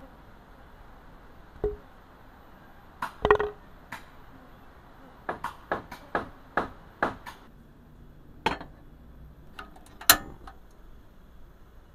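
Kitchen work: scattered sharp knocks and clinks of utensils and cookware, a few of them ringing briefly. About halfway through comes an even run of about eight quick knocks, roughly three a second.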